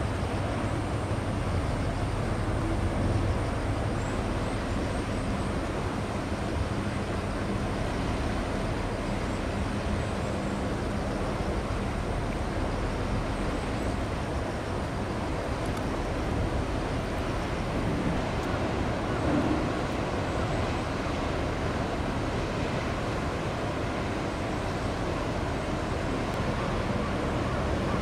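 Steady low rumble of distant engines over a constant outdoor noise, with faint humming tones that come and go.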